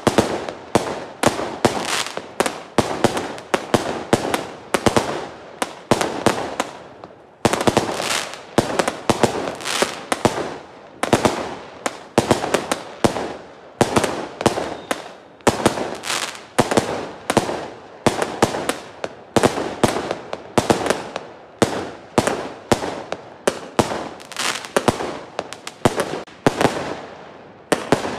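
Aerial fireworks going off in a rapid barrage of sharp bangs and pops, several a second, with a brief lull about seven seconds in.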